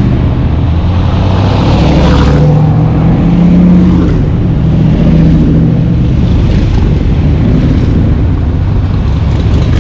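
A line of Shelby Cobra roadsters driving past one after another, their V8 engines loud, the engine note rising and falling as they go by.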